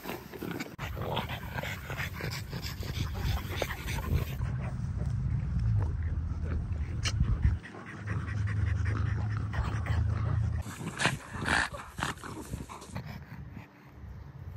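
French bulldog panting, with scattered short rustles and clicks; the panting breaks off briefly a little past halfway.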